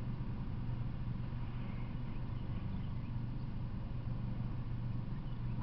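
An engine idling steadily, a constant low hum with no change in pitch or level.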